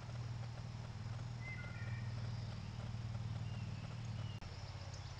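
Steady low hum from a trail camera's recording, with a few faint, short, high chirps. About four seconds in it breaks off into another clip with a fast, even, high ticking.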